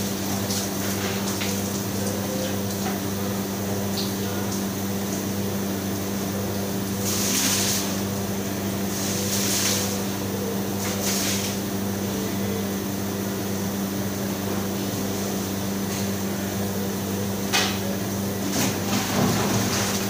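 Steady hum of commercial kitchen refrigeration and ventilation equipment, with several short rushes of water splashing during floor cleaning and a sharp knock about three-quarters of the way through.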